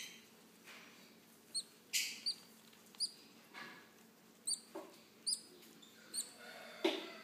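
Baby green-cheeked conures chirping during hand feeding. They give short high cheeps about once a second, mixed with lower, rougher calls, and the loudest comes near the end.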